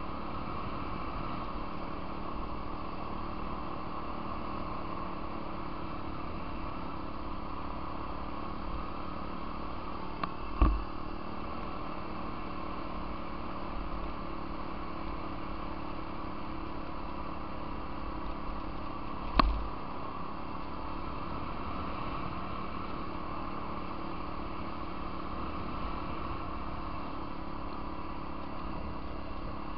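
Off-road vehicle engine running at a steady speed while riding a gravel trail. Two sharp knocks break it, about ten seconds in and again just past nineteen seconds.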